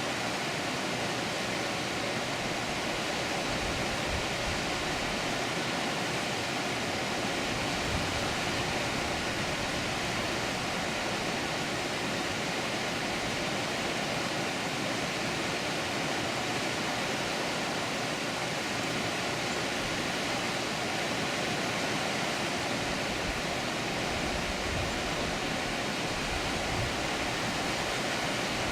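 Water pouring over a dam, a steady even rush with no breaks.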